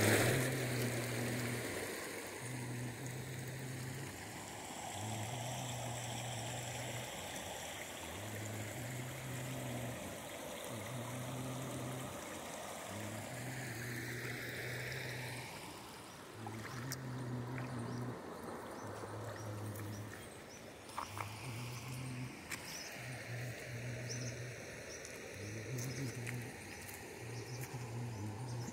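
River water running over a stony bank, with a low hum that comes and goes every second or so and a few light clicks in the second half.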